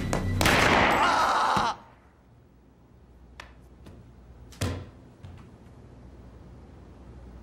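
A single pistol shot with a long ringing tail that cuts off suddenly about a second and a half in. A few faint knocks follow, then a thud about four and a half seconds in as the wounded boy drops to the floor.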